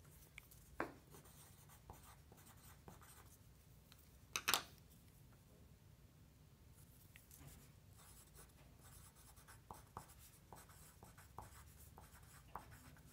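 Faint scratching of a coloured pencil writing on paper, with scattered light ticks and a few sharper clicks of pencils being handled, the loudest a double click about four and a half seconds in.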